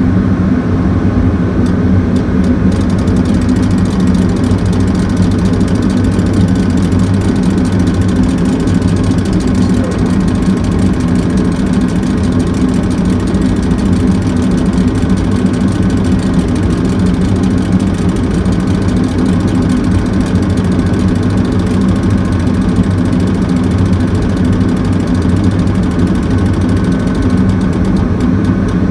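Heavy diesel engines running steadily: a loud, even drone that holds the same speed throughout.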